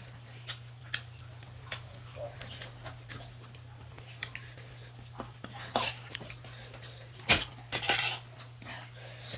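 Cutlery clinking and knocking against dishes while eating, in scattered irregular taps, two louder knocks near the end, over a steady low hum.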